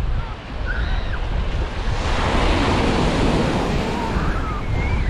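Surf breaking on a sandy beach: a wave washes in and swells up in the middle, then eases off, with wind rumbling on the microphone.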